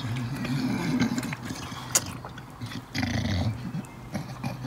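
English bulldog with his muzzle in a steel bowl of water, nosing and lapping after treats frozen in ice cubes, breathing noisily in bouts. A single sharp knock comes about two seconds in.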